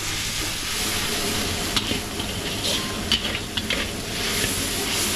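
Noodles sizzling in a large wok while a metal ladle stirs and scrapes them, with a few sharp clinks of the ladle against the wok.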